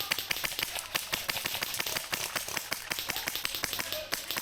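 Airsoft guns firing: a fast, irregular string of sharp cracks from several guns at once, several shots a second.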